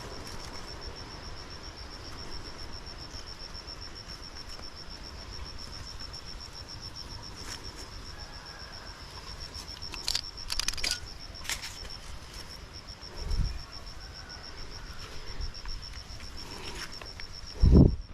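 Insect trilling steadily: a high, evenly pulsed buzz, over a low rumble. A few sharp clicks come about ten seconds in, and a low thump near the end is the loudest sound.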